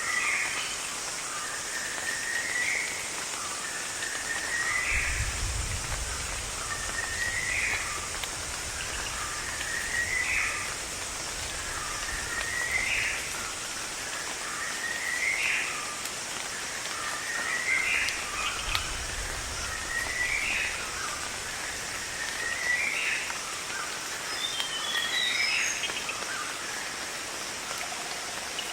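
Rainforest ambience: a bird repeats one short call that rises in pitch, about every two and a half seconds, over a steady high hiss of insects or rain. Two low rumbles come about five seconds in and again near the middle, and a few higher chirps from another bird come near the end.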